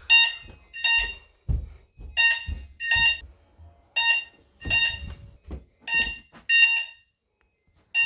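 Hochiki ESP addressable fire alarm sounders sounding the intermittent alert tone, the panel's function 2: short, shrill electronic beeps that come in pairs, about one pair every two seconds.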